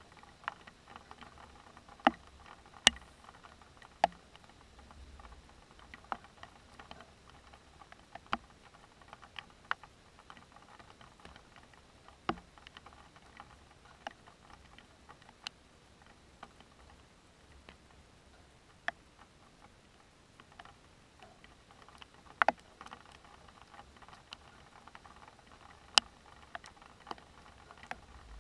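Scattered heavy raindrops hitting a hard surface close to the microphone: irregular sharp ticks about every one to two seconds, a few of them much louder, over a faint steady background hiss.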